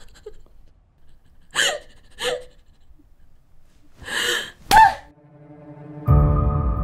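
A woman's short gasps and breaths in a struggle, ending in a sharp cry, then sustained dramatic music swells in and comes in loudly about six seconds in.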